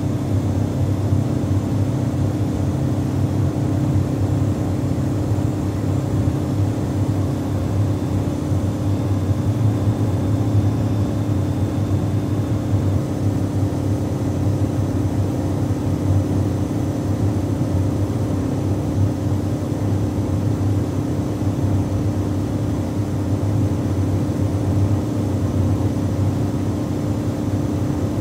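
Cabin of a 1980 Ford Fiesta with a 1300cc engine cruising at constant motorway speed: a steady low engine drone mixed with road and wind noise, holding an even pitch and level.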